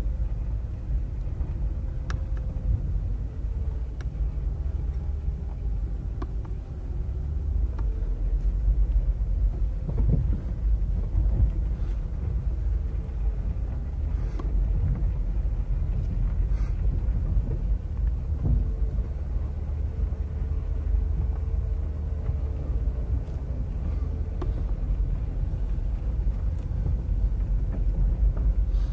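Car driving on a gravel dirt road, heard from inside the cabin: a steady low rumble of tyres and engine, with scattered sharp ticks and knocks.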